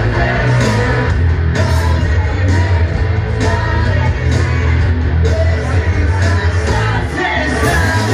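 Live rock band playing loudly, with electric guitars, heavy bass, drums and a singer.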